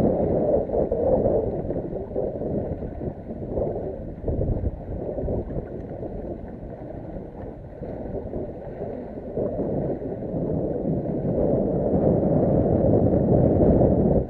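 Wind rumbling on the microphone together with water lapping and slapping against a boat's hull. It rises and falls in gusts, louder at the start and again near the end.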